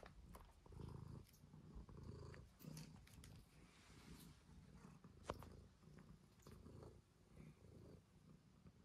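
Domestic cat purring faintly at close range, in repeated soft swells. A single sharp click sounds about five seconds in.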